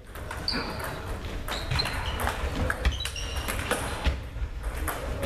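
Table tennis balls clicking off bats and tables in a doubles rally, a string of short sharp hits echoing in a large sports hall, with a low murmur of voices in the background.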